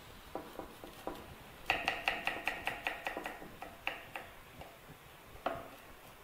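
Knife chopping garlic on a wooden chopping board: a few spaced chops, then a quick run of about ten chops about two seconds in, then a few more single chops.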